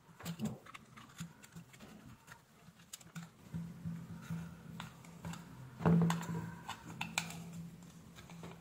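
Light clicks, taps and scrapes of fingers and a screwdriver working on the plastic housing and diaphragm parts of an opened aquarium air pump. A faint low hum comes and goes under them.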